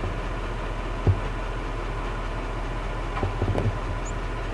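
A vehicle engine idling steadily, with one sharp knock about a second in and a few soft thumps near the end.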